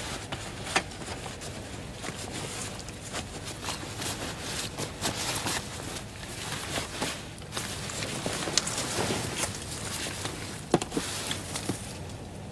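Irregular rustling and shuffling movement with a few sharp knocks scattered through it.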